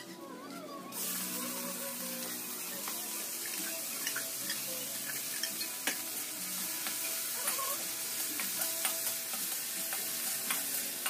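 Chicken pieces sizzling in hot oil in a wok while being stirred with a spatula. The sizzle starts up about a second in and holds steady, with scattered clicks of the spatula against the wok.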